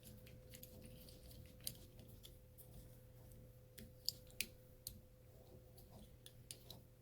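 Faint scattered clicks and light plastic handling noises as the pull-down spray hose is fitted back onto its quick-connector, with a few sharper ticks about four seconds in, over a faint steady hum.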